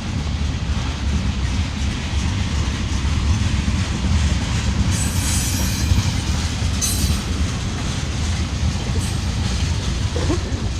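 Freight train tank cars rolling past, a steady low rumble of steel wheels on the rails, with short high-pitched wheel squeals about five and seven seconds in.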